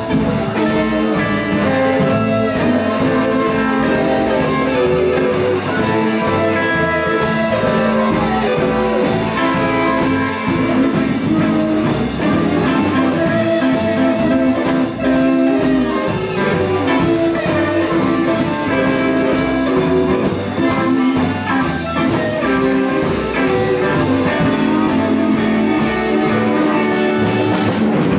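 Live electric blues band playing: electric guitar over a steady drum beat.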